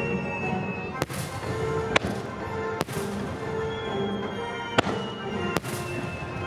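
Aerial fireworks bursting: five sharp bangs, most about a second apart, over steady music.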